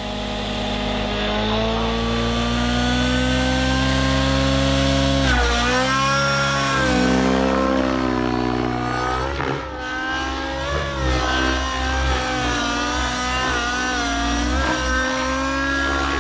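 XLPower Specter 700 Nitro RC helicopter's nitro engine running hard in flight, its pitch dipping and rising again and again as the helicopter flips and turns through aerobatic manoeuvres.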